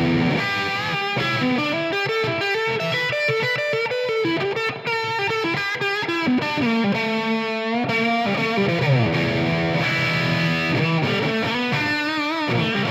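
Squier Made in Japan electric guitar played with distortion on its humbucker pickup: a single-note lead run with string bends around the middle and vibrato near the end.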